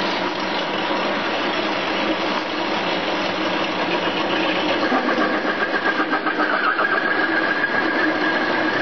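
Bench lathe running while a carbide slot mill plunge-cuts into the end of a hard steel tool post wrench spinning in the chuck. About halfway through, a higher whine joins the running noise and the sound begins to pulse rapidly as the cutter is fed deeper.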